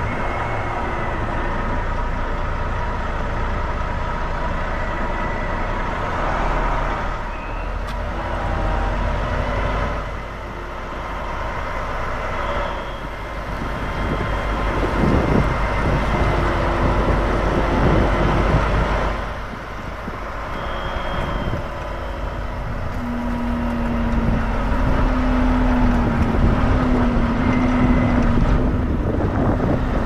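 Semi truck's diesel engine running at low speed as the tractor-trailer reverses, steady and growing slightly louder in the last third.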